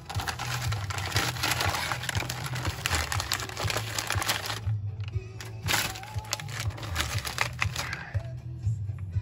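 Brown paper bag crinkling and crackling as hands handle and fold it, stopping briefly about five seconds in and easing off near the end. Background music with a steady bass line plays underneath.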